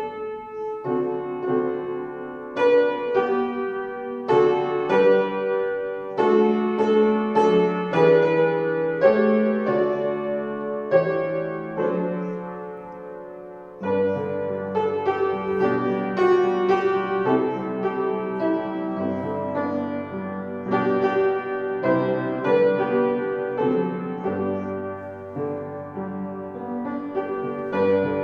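Solo piano playing a slow piece of chords that ring and fade. The playing grows quieter about halfway through, then picks up again over held low notes.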